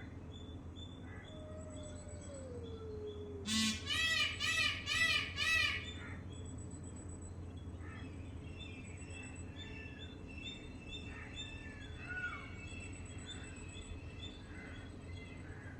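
Wild birds calling: a loud run of about five harsh, rasping notes about four seconds in, then scattered soft chirps and short down-slurred whistles, over a steady low background hum.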